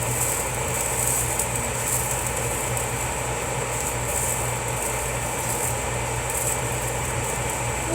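Sausages sizzling in a frying pan: a steady crackling hiss over a constant low hum.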